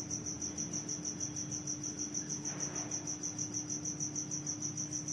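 Insect chirping steadily, likely a cricket: an even, rapid pulse of high chirps, about eight a second, with faint marker strokes on a whiteboard now and then.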